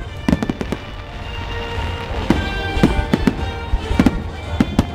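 Fireworks display: aerial shells bursting and crackling with many sharp bangs, several a second, over music with sustained tones.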